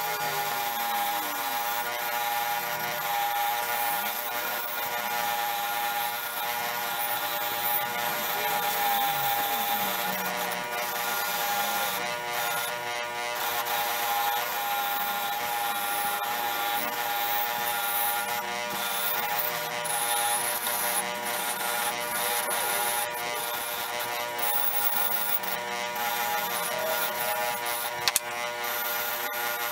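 Wire wheel brush spinning on an electric motor's shaft, scratching rust off a steel letterpress quoin key held against it, over the motor's steady hum. A sharp knock near the end.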